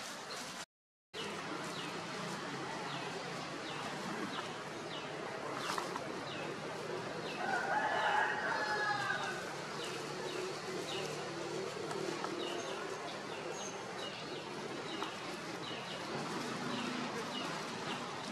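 A rooster crows once, a wavering call of about two seconds starting about seven seconds in, over short high bird chirps repeating about once a second.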